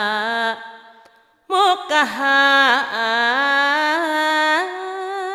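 A single voice singing slow, ornamented Sundanese verse in long held notes. The phrase dies away about half a second in, and after a pause of about a second a new phrase begins. Its long notes waver and later slide upward.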